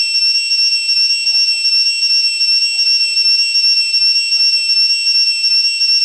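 Cicada singing: a loud, continuous, high-pitched buzzing whine with a fast, even pulse, made by the tymbals on the sides of its hollow abdomen.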